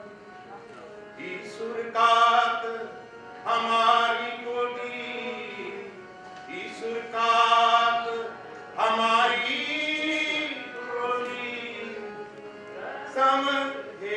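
A voice singing a folk melody in long, drawn-out phrases, over a steady instrumental drone.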